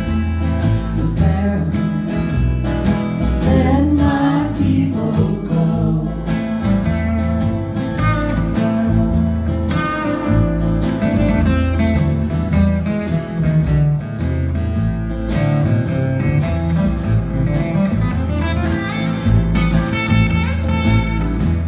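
Live acoustic folk music: two steel-string acoustic guitars strumming and picking over a plucked upright bass, with singing.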